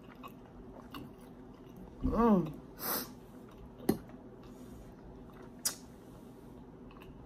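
A person eating and chewing a mouthful of food, with a few sharp clicks of mouth or utensil sounds. About two seconds in there is a short voiced sound, followed by a brief breathy burst.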